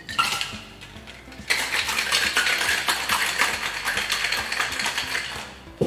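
Ice rattling hard inside a Boston cocktail shaker (metal tin sealed onto a mixing glass) as a cocktail is shaken for about four seconds. A few clinks come first as the tin is fitted onto the glass, and a sharp knock comes at the very end.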